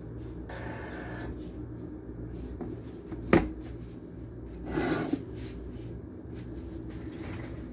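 Steady low hum of a window air conditioner in a small room. A single sharp knock comes about three seconds in, and a short rustle ending in a click follows near five seconds as someone handles things at the table.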